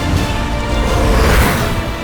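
Tense film soundtrack music with a heavy low end, and a whoosh swelling up that peaks a little past the middle.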